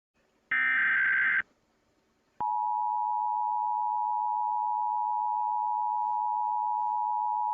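Emergency Alert System broadcast tones: a short burst of electronic data screech (the SAME header), then after about a second the steady two-tone EAS attention signal, which starts about two and a half seconds in and holds unbroken.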